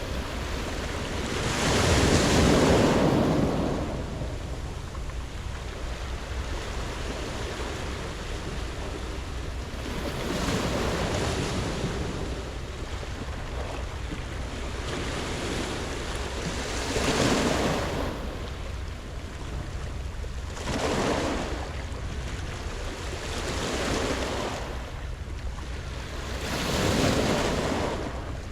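Sea waves breaking and washing up a round-pebble beach. A wave surges in every few seconds, six times in all, and the first is the loudest.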